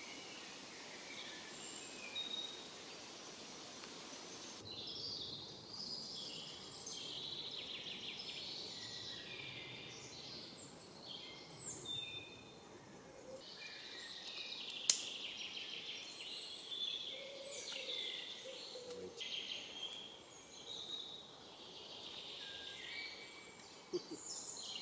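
Several songbirds singing, with short whistled and trilled phrases one after another. A single sharp click about fifteen seconds in stands out above the birdsong.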